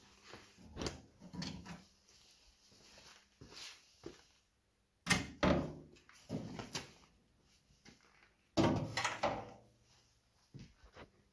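Clunks, knocks and scraping of old steel body panels of a 1927 Ford Model T runabout being handled and leaned against the body tub, the loudest about five seconds in and again about eight and a half seconds in.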